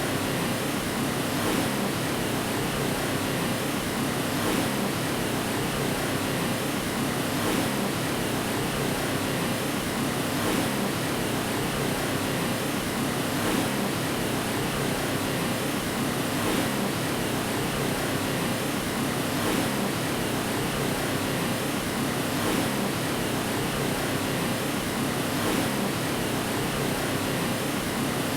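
Steady white noise meant to lull a baby to sleep: an even hiss, fuller in the low-middle range, with a faint swell about every three seconds.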